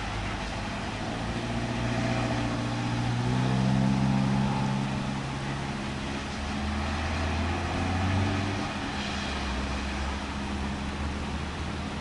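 A motor vehicle's engine running on the street, a low hum that swells and shifts in pitch as it moves, over a steady hiss.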